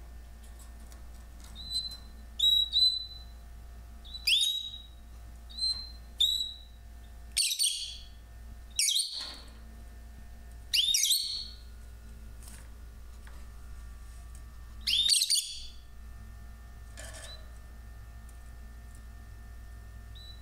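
Lovebirds giving about ten short, shrill calls in bunches, with pauses of a second or more between them and a longer gap after the last loud pair.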